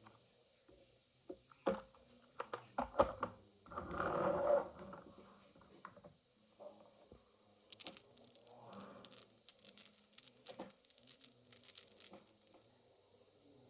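Marbles clacking and rolling down a HABA wooden marble run. Scattered clicks, a short rolling rush about four seconds in, and a quick run of clicks in the second half.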